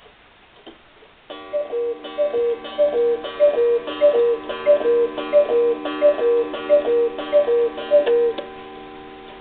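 Antique Black Forest cuckoo clock (Friedrich Eisenlohr 'Bahnhäusle' design, ca. 1860–70) striking the hour. About a second in, its bellows-blown pipes start a fast run of two-note cuckoo calls, high then low, about a dozen in a row less than a second apart, over the faint ticking of the movement.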